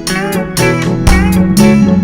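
Reggae band music with no vocals: guitar playing a lead line with bent notes over bass and a steady beat.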